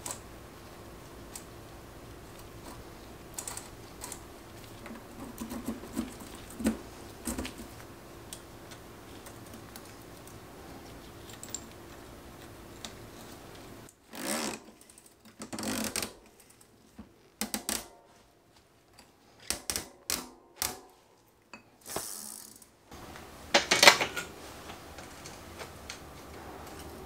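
Bicycle rear-wheel work: light metallic clicks of cone wrenches on the hub, then from about halfway a series of sharper metal clinks, scrapes and ratcheting from the cassette and lockring tool, with a loud clatter near the end.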